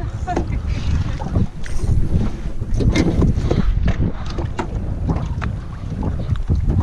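Wind buffeting the microphone in an open boat, a steady low rumble, with scattered knocks and taps from gear being handled aboard.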